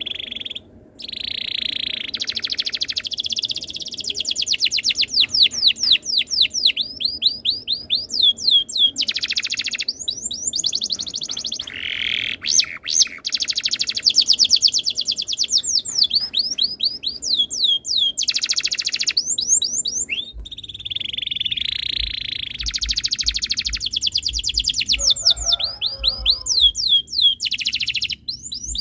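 Domestic canary singing long rolling trills of rapid repeated notes, with short pauses between phrases. A faint low pulsing runs underneath in the second half.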